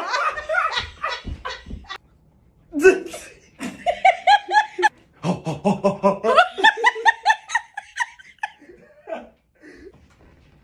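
People laughing in several bursts of quick, pulsing laughter, trailing off near the end.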